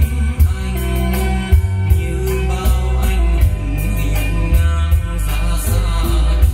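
A song with a strong bass line, a steady drum beat and guitar, played back through JBL 4312 MkII loudspeakers driven by a Marantz 1150 MkII amplifier.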